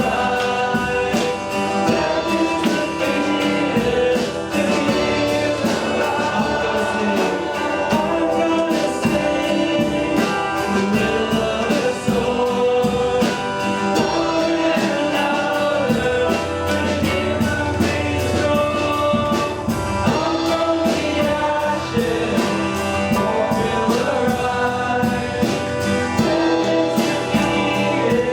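Worship song in a church service: several voices singing together over instrumental accompaniment with a steady beat.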